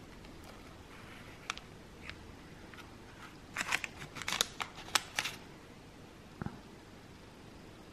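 Kitchen knife slicing down through a freshly baked banana and chocolate muffin in a paper tulip case, a quick run of crisp crackling cuts in the middle, then a single soft knock about six seconds in.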